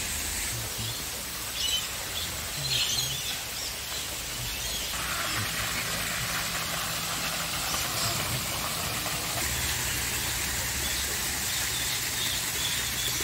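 Aviary ambience: a steady hiss with a low hum beneath it, and short bird calls about two and three seconds in. The hiss grows fuller about five seconds in.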